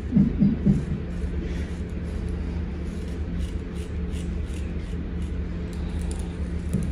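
Straight razor scraping through lather and stubble on a shaved scalp in a series of short strokes, over a steady low hum. A few low bumps come in the first second.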